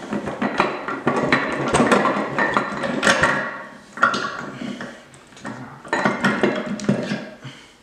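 Steel gears and shafts of a VW 6-speed manual transmission clinking and knocking against each other and the case as the gear shaft assembly is wiggled and lifted out. Dense metallic clatter at first, thinning to a few scattered knocks after about four seconds.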